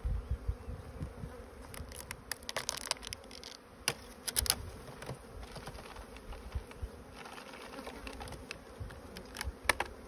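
Honey bees buzzing steadily around an open hive, with scattered sharp clicks and light knocks, a cluster of them a couple of seconds in, another around four seconds in, and a couple more near the end.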